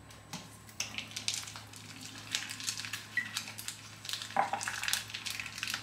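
Plastic meat packaging crinkling and crackling as the pack of minced beef is cut open with kitchen scissors and handled, then squeezed out into a bowl: a dense run of small crackles.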